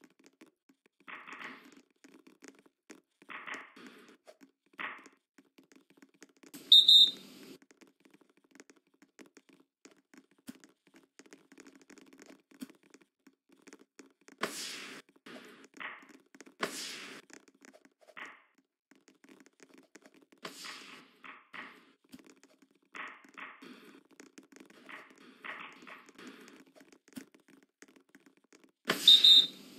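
Volleyball play in a gym: the ball is struck sharply several times, between smaller knocks and short noises, and a referee's whistle gives a short blast about seven seconds in and again near the end.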